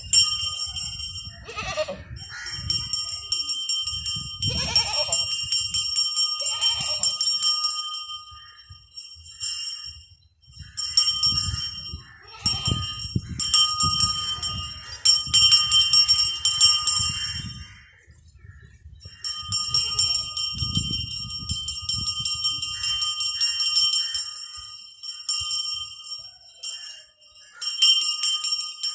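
Metal bells ringing in repeated bursts of several seconds each, with short breaks between. A goat bleats a few times in the first seconds.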